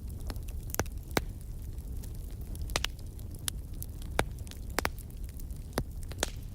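Wood fire crackling in a fireplace: irregular sharp pops and snaps, about ten in a few seconds, over a low steady rumble.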